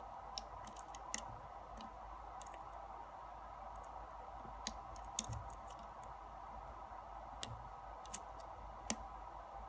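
Lock pick working the pins inside a brass Yale pin-tumbler cylinder: small, sharp metallic clicks at irregular intervals, the loudest about seven seconds in, over a faint steady hum.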